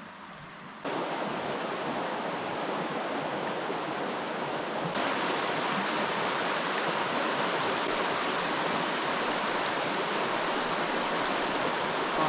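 Rushing water of a trout stream, a steady rush that abruptly gets louder about a second in and again about five seconds in.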